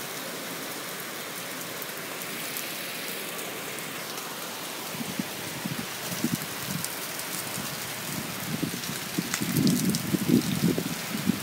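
Heavy rain pouring down in a steady hiss. From about halfway in, gusts of wind buffet the microphone in irregular low bumps, strongest near the end.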